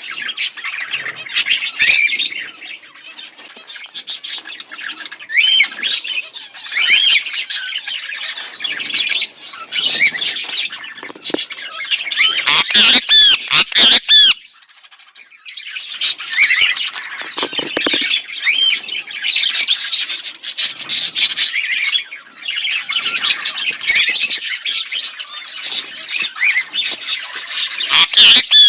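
A pair of budgerigars chattering and chirping continuously, a rapid mix of warbles, squawks and short whistled notes, with a burst of loud sharp calls about halfway through and a brief pause just after.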